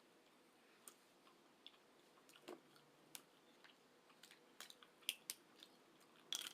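Faint close-miked chewing: about a dozen scattered wet mouth clicks and smacks. The loudest come a little after five seconds in and near the end.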